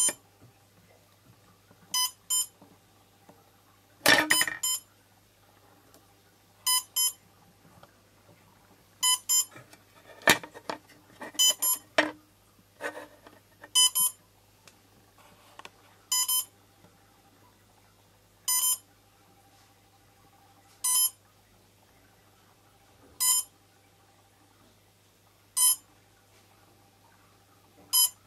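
Short high-pitched electronic beeps from a powered quadcopter's electronics, often in pairs, repeating about every two and a half seconds. A few handling knocks come around four seconds in and again around ten to twelve seconds.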